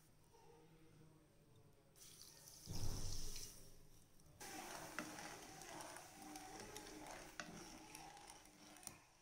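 Water poured into a nonstick pan of sugar about two seconds in, loudest around three seconds. Then a ladle stirs and scrapes the wet sugar in the pan to dissolve it for syrup, with a few light knocks.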